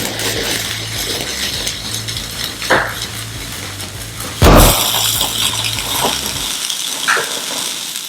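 A loud bang about four and a half seconds in, with lighter clinks and knocks before and after it, over a steady hiss.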